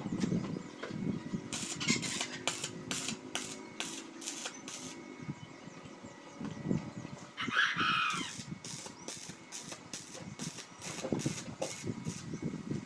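Stick (arc) welder crackling in two spells as electrodes are burned on steel tubing, with a pause between them. In the pause a chicken gives one short falling call.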